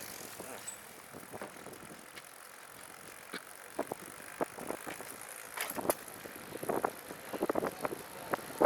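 Recumbent trike rolling along a bike path with scattered sharp ticks, sparse at first, then more frequent and louder in quick runs from about halfway. The ticking comes from the rear wheel, which the rider suspects is due to spokes or wheel bearings rather than derailleur alignment.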